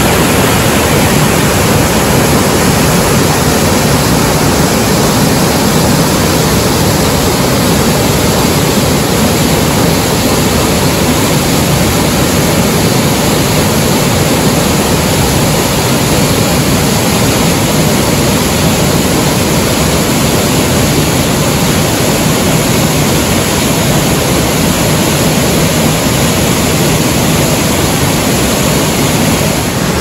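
Loud, steady rush of fast-flowing water in a mountain gorge, unbroken throughout.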